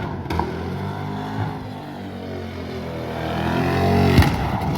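The 1997 Lexus LS400's 4.0-litre V8 revs hard, its pitch climbing through the last couple of seconds while the automatic is held in second gear. A sharp bang about four seconds in is the car hitting something and breaking its bumper.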